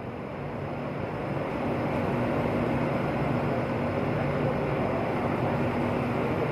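Diesel bus engine running steadily with a low hum. It grows louder over the first two seconds, then holds.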